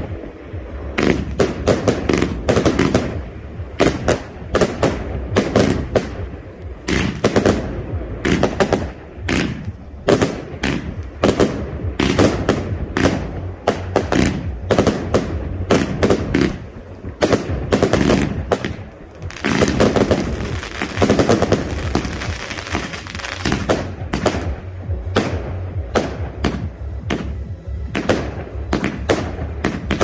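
Garden fireworks barrage firing in rapid succession: a continuous string of sharp bangs as shots launch and burst, several a second. About two-thirds through, the bangs run together into a denser stretch.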